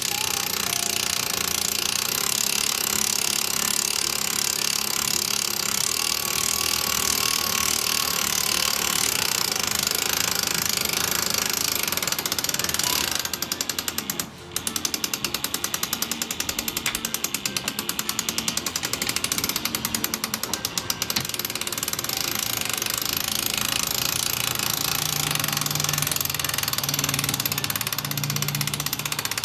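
Cordless drill driving a ShortCut auto-glass winder, reeling in cutting cord that slices through the urethane bead holding a pickup's back glass. It runs loud and steady, stops briefly about halfway through, then starts again with a fast rattle for several seconds.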